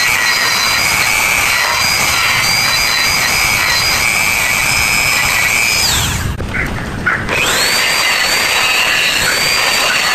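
Small electric die grinder with a burr bit running at a steady high whine as it grinds coconut shell. About six seconds in the pitch falls away as the tool spins down, and about a second later it spins back up to speed.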